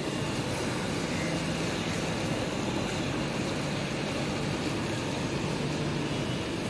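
Steady city street traffic: cars driving past on a rain-wet road, their engines and tyres making an even rushing noise with a faint low hum underneath.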